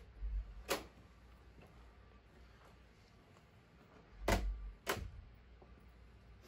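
Three sharp clacks, one about a second in and two close together near the end, the first of the pair with a low thud, as things are handled at a clothes closet.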